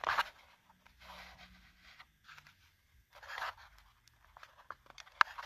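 Handling noise from a camera being tilted down and adjusted: soft scraping and rustling bursts, with a few light clicks near the end.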